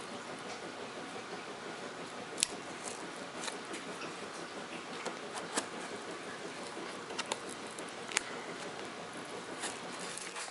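Sealed cardboard box being carefully worked open at the side: scattered sharp clicks and snaps of cardboard and tape, the loudest about two seconds in and near the end, over a steady faint hiss.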